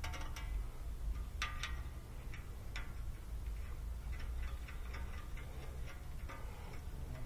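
Small irregular metal clicks and ticks from a condenser fan blade's steel hub and set screw being handled and fitted on the fan motor shaft, over a low steady rumble.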